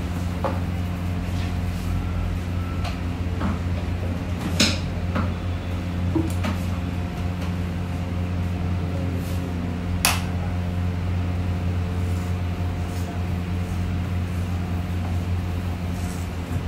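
A steady low machine hum runs throughout, with a few sharp clicks and knocks; the two loudest come about four and a half and ten seconds in.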